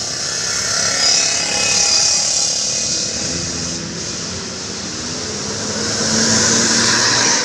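Large tour bus driving past, its diesel engine running with a loud rushing road and air noise that swells about a second in and again near the end.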